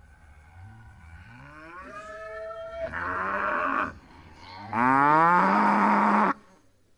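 Cow mooing twice: a long moo that starts faint and swells, its pitch rising, then a second, louder moo that rises in pitch, holds, and cuts off suddenly.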